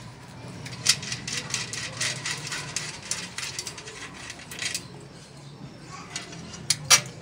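Light metallic clicking and rattling as a bicycle front wheel's axle and spokes knock against the steel fork while the wheel is fitted: a run of small clicks for a few seconds, then two sharper clicks near the end, over a low steady hum.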